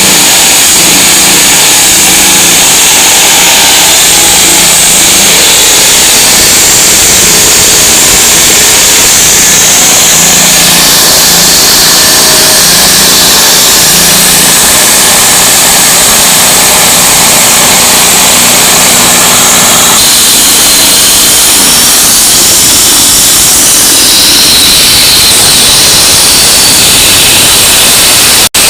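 Road construction machinery engine running steadily, very loud and distorted, with a wavering low hum under heavy hiss.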